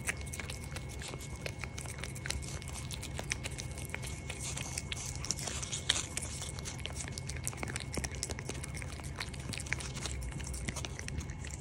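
A cat licking a squeeze-tube lickable treat from its packet, a fast run of wet licking and smacking clicks close to the microphone.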